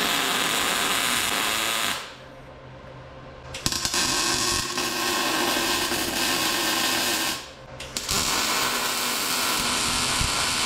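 MIG welder laying three welds of a few seconds each, each starting and stopping sharply, with short pauses between them.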